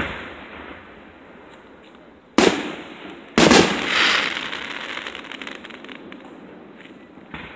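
Aerial fireworks shells bursting: two loud booms about a second apart, the second trailing off slowly over a couple of seconds, with fainter bangs at the start and near the end.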